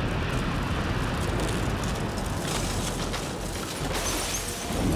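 A 31-storey reinforced-concrete tower collapsing in an explosive implosion: a dense, steady rumble of falling concrete and debris as the dust cloud engulfs the spot, harsher about two and a half seconds in and again near the end.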